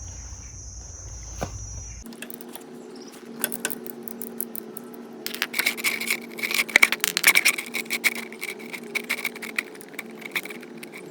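Ratchet socket wrench clicking in quick runs as the motorcycle engine's oil drain plug is loosened, over a steady hum. Crickets chirp steadily in the first two seconds.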